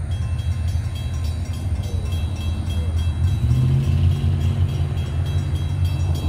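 Diesel locomotive running light without cars, approaching out of sight: a steady low engine rumble that takes on a clearer pitched note and grows a little louder about halfway through.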